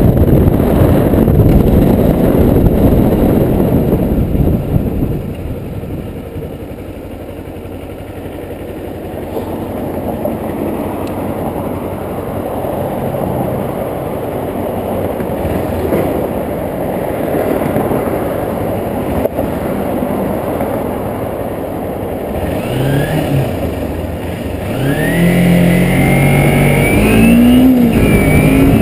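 Kawasaki Ninja motorcycle being ridden: a heavy rumble of wind noise on the microphone, strongest at the start. Near the end the engine revs up in several rising sweeps as it accelerates.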